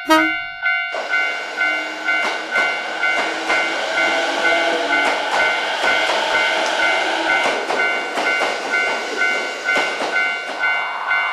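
Japanese railway level-crossing alarm bell ringing in a steady pulse about twice a second, while a train passes from about a second in until near the end, its running noise and wheel clicks rising and then fading.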